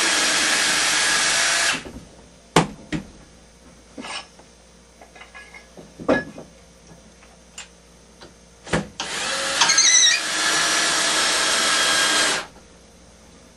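Two long bursts of steady rasping tool noise on metal, each starting and stopping abruptly, the first about two seconds and the second about three, with a few sharp knocks in the gap between them.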